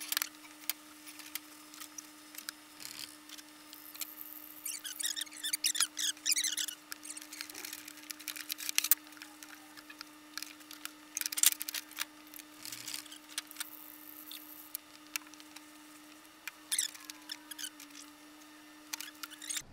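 Small paint roller spreading wood glue over thin wooden lamination strips, heard as several bursts of rapid crackling clicks as it rolls back and forth. A faint steady hum runs underneath.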